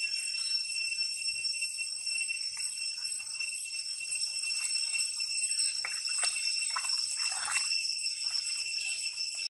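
Steady high-pitched ringing chorus of insects, several constant tones held together. A few short splashes of water from a swimming baby monkey come about six to seven and a half seconds in.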